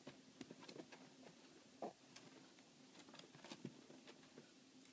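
Faint, irregular light ticks and rustles of a pet rabbit moving about in the loose bedding of its cage while it plays with a cat toy on a string, one small tap a little louder nearly two seconds in.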